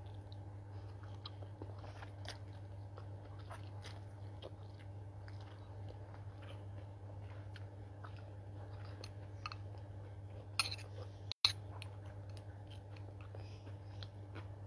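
Someone eating instant noodles with a fork: chewing, with many small clicks, over a steady low hum. Two sharper clacks come about ten and a half seconds in.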